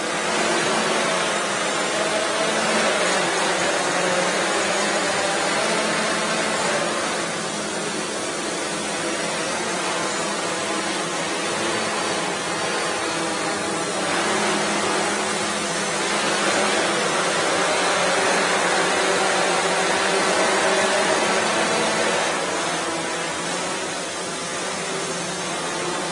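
Small quadrotor propellers whirring: a steady, loud hiss with a faint hum whose pitch wavers slightly as the rotors change speed.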